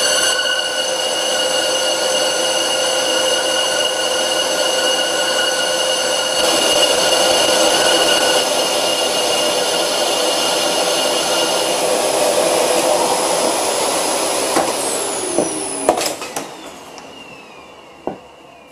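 A century-old Karger bench lathe, its motor on a frequency drive, running at about 300 RPM while a negative-rake insert takes a light facing cut across a cast-iron brake disc: a steady whine of several tones over the hiss of the cut. About 16 seconds in come a few clicks, then the whine falls in pitch and fades as the lathe slows down.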